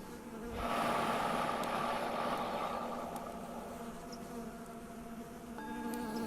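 A rushing whoosh swells about half a second in and fades away over a few seconds, over the steady ringing of a Tibetan singing bowl and bees buzzing. Near the end the bowl is struck again and rings out, marking the next 5-second breathing phase.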